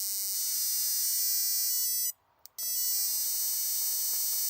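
Spark plug tester buzzing with a high, hissing electrical whine as it fires a spark plug. The buzz cuts out for about half a second midway, then resumes. The plug is sparking down the side of its porcelain, which the owner takes for a hairline crack.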